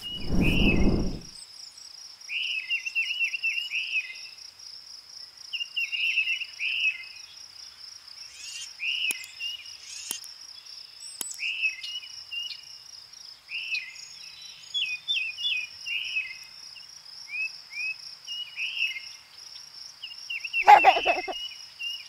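Tufted titmouse singing: short phrases of quick repeated whistled notes, one every second or two, over a steady high insect drone. A brief low rush of noise opens it, and a short loud burst comes near the end.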